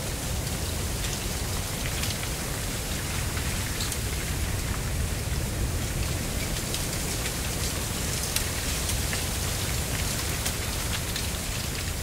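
Mistral wind blowing through a stand of dry giant cane (Arundo donax), the dry leaves and stalks rustling with many small clicks and ticks over a steady low wind rumble.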